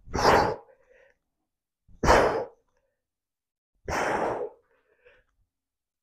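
A man breathing out hard in loud, breathy huffs, one for each dumbbell squat: three of them, about two seconds apart.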